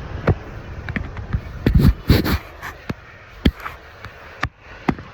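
Irregular clicks and knocks with a louder cluster of rustling about two seconds in: things being handled inside a car cabin.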